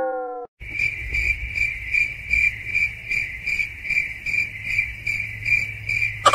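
Cricket chirping: a steady high chirp pulsing about three times a second over a low hum, starting suddenly about half a second in and cutting off suddenly near the end.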